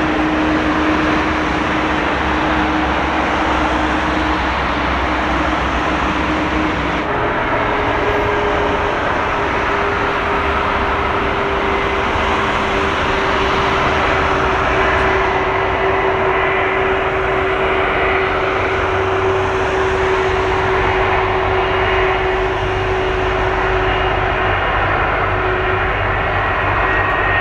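Steady loud cabin noise of an airliner in flight: engine drone and rushing air, with a steady hum that steps up in pitch about seven seconds in.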